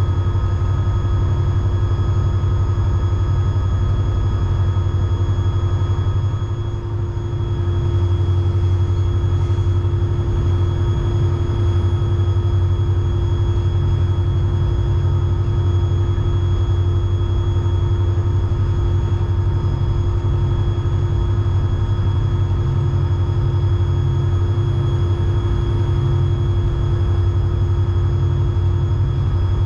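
EMD SD40-3 diesel-electric locomotive running under power, its 16-cylinder turbocharged two-stroke engine giving a steady, heavy low drone with a constant whine over it. The level dips briefly about seven seconds in.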